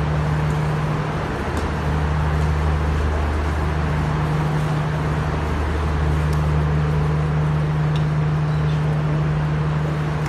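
Steady low mechanical hum with a constant noisy wash over it, in the echoing stairwell of a railway station; the hum briefly drops out a couple of times.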